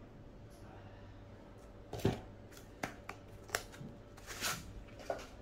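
Cardboard watch gift boxes being handled: a few light taps and clicks as boxes are picked up, turned over and set down, with a brief rustle of card about four seconds in.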